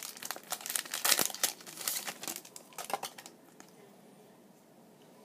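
Plastic packaging of a 2015 Bowman football card blaster box being torn open and crinkled by hand, a dense crackle that stops about three seconds in, leaving only a faint tick or two.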